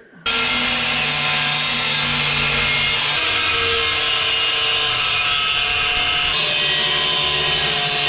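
Angle grinder with a cutoff wheel and no guard cutting through steel angle iron from an old bed frame. It starts abruptly just after the start and runs steadily under load, its tone shifting about three seconds in.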